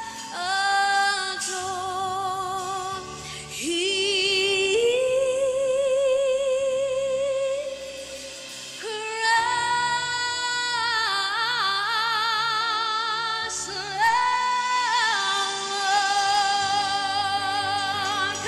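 A woman singing a worship song, holding long notes with vibrato, backed by a live band with bass guitar and drums.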